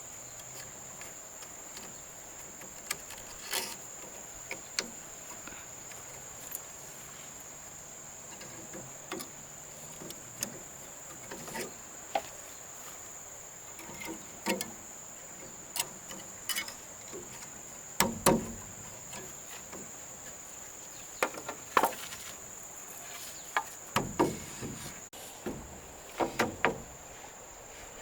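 Steady high-pitched insect chirring, typical of crickets, with irregular knocks and clatters on top, loudest about two-thirds of the way in and in a cluster near the end.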